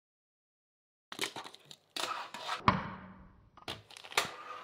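Fingerboard clacking and knocking on a desktop under the fingers: a few sharp clicks, one loud knock with a brief ring about two and a half seconds in, then more clicks near the end.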